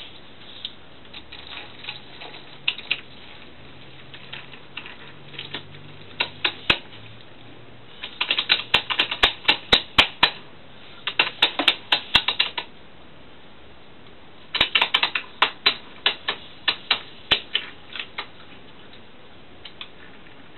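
Toy train cars clicking and clattering as they are pushed by hand along a wooden windowsill. The clicks come in quick runs with pauses between: sparse at first, busiest around the middle.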